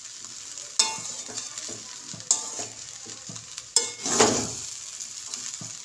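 Metal spatula stirring and scraping fried rice in a metal wok, with a steady sizzle. Three sharp strokes against the pan come about a second and a half apart, then a longer, louder scrape just after the middle.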